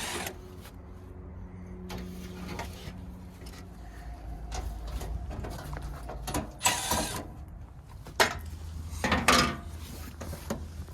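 Hand tools and metal parts clicking and clattering during work on a mini split outdoor unit's fan motor, a few scattered strikes and rattles over a low steady hum.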